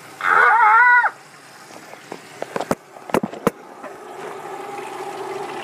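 Kitchen tap running into a stainless steel sink. Near the start there is a loud, high-pitched wordless cry with a wavering pitch, and around the middle a few sharp knocks.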